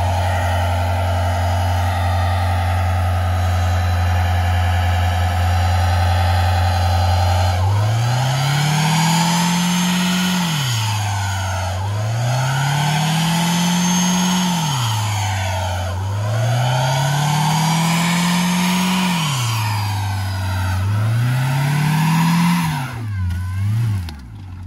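Saturn S-series sedan's four-cylinder engine held at high revs in a front-wheel burnout, the spinning front tire scrubbing on a wooden board. After about eight seconds the engine is revved up and down four times, each rise holding briefly at the top, and near the end it drops back.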